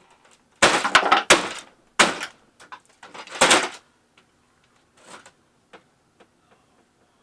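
Plastic housing of a Shark vacuum cleaner being broken apart for scrap: a cluster of loud cracks and clatters in the first four seconds, then a few light taps and clicks.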